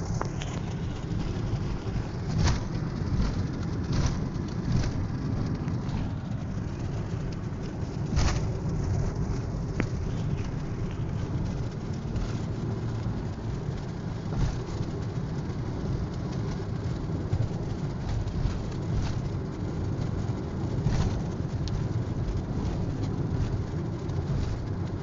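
A vehicle driving, heard as a steady low rumble with scattered sharp knocks and clicks.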